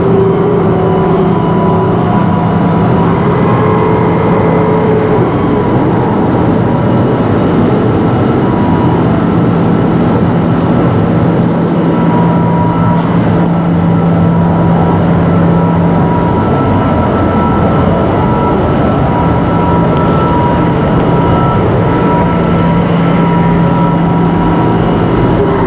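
Vehicle engine running steadily, a loud, even drone with a steady low hum.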